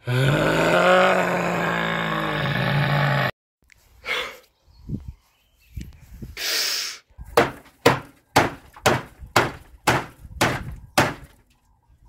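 A loud held sound for about three seconds that cuts off suddenly, then a run of about nine heavy strikes, roughly two a second, of a long-handled tool smashing into a pile of scrap wood.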